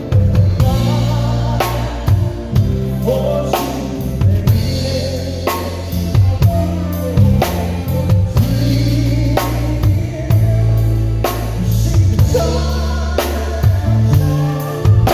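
Drum kit played to a song, with kick drum, snare and cymbal hits keeping a steady beat over a bass line and singing.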